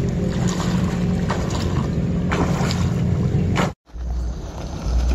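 Splashing in shallow river water as a man wades along the bank catching fish by hand, over a steady low hum. After an abrupt cut about four seconds in, wind rumbles on the microphone.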